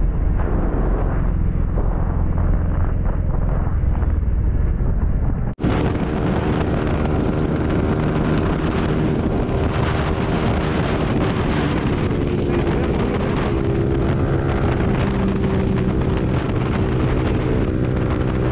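Yamaha sport bike ridden at highway speed: heavy wind rushing over the microphone, with the engine holding a steady hum underneath. About five and a half seconds in the sound drops out for an instant and comes back brighter, with the engine's hum clearer.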